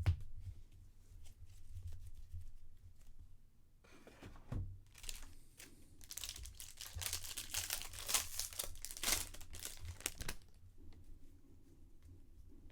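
A foil trading-card pack wrapper being crinkled and torn open, with a stretch of dense crackling from about four seconds in to about ten seconds in. A couple of soft thumps come near the start and just before the crackling.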